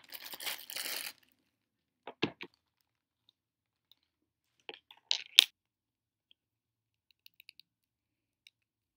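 A clear plastic bag crinkling briefly, then sharp clicks and taps of hard plastic figure parts being handled and pressed together: three clicks about two seconds in, a louder cluster about five seconds in, and a few faint ticks near the end.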